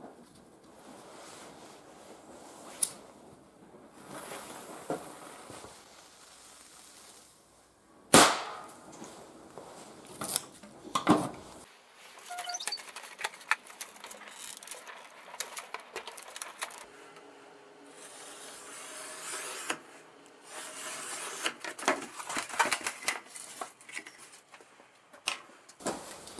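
Hands handling and working on a foam RC model plane at a workbench: scattered clicks, knocks and rustles. A sharp knock about eight seconds in is the loudest.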